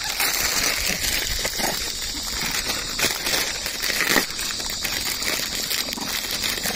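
Plastic snack packets crinkling and rustling in irregular bursts as snacks are handed out to a crowd of rhesus macaques, over a steady high-pitched hiss.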